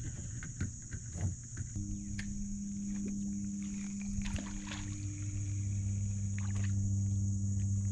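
A steady, high insect drone, with a low, even motor hum from a boat coming in about two seconds in and growing deeper and louder about five seconds in. A few light clicks and knocks.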